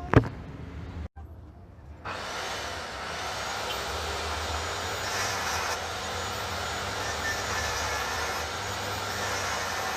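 A handheld power tool runs steadily on the car's bonnet metal, boring or cutting for the clip fitting, after a sharp click about a quarter of a second in.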